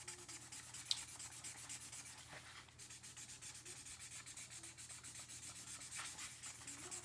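Marker scribbling rapidly back and forth on paper as an area is coloured in, several scratchy strokes a second.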